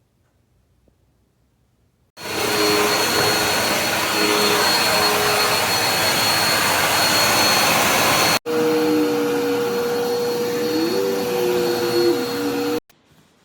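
Dirt Devil Endura Lite bagless upright vacuum cleaner running, a loud steady motor-and-airflow noise with a high whine. It starts abruptly about two seconds in, breaks off for an instant partway through, and cuts off suddenly near the end.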